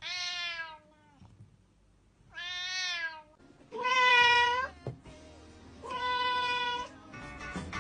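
Domestic cat meowing four times, each meow about a second long with gaps between; the first falls in pitch.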